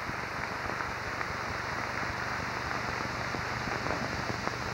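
Large audience applauding: many hands clapping together.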